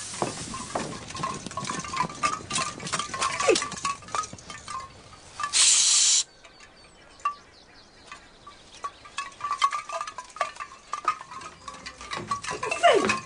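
Light metallic chinking and jingling of armour and gear on people moving about, many small clicks and rattles. A loud hiss lasting about half a second cuts in just before the middle.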